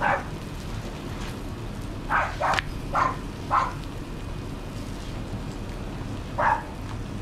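Food sizzling steadily on a hot flat-top griddle, with six short, sharp louder sounds: one at the start, four in quick succession between about two and three and a half seconds in, and one near the end.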